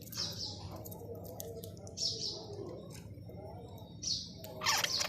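Pet budgerigars chirping and chattering: short high chirps about every two seconds over a soft, continuous warble, with a louder harsh squawk near the end.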